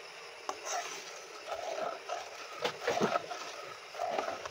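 A metal fork stirring thin liquid in a metal kadai, scraping against the pan with a few sharp clicks, over a steady hiss.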